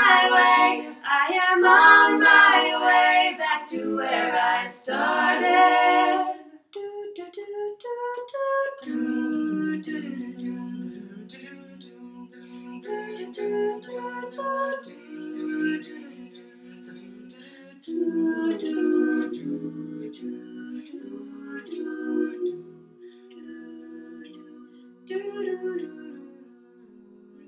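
Four female voices singing a cappella in close harmony. A loud sung phrase lasts about six seconds; then, after a short break, softer held chords die away toward the end.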